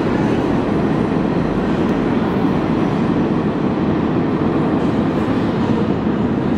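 New York City subway express train running through the underground station on the express track behind the column wall: a loud, steady rumble of steel wheels on rail.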